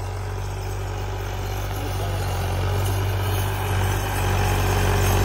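Massey Ferguson 260 tractor's three-cylinder diesel engine running steadily under load as it pulls a tined cultivator through the soil, growing louder as it comes closer.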